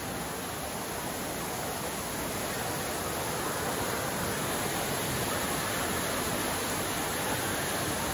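Steady rush of running and splashing water from an indoor waterpark's slides and water-play structure, with no distinct events and growing slightly louder.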